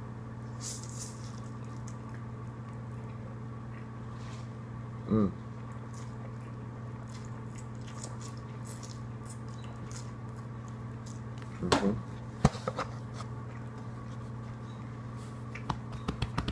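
A person chewing a mouthful of ramen noodles, with small wet mouth clicks and squishes, over a steady background hum. Two short murmurs come about five seconds in and near twelve seconds, and a quick run of clicks comes near the end.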